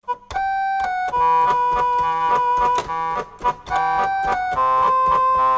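Band music: a keyboard plays held notes over a steady beat of short percussive hits, starting right at the opening.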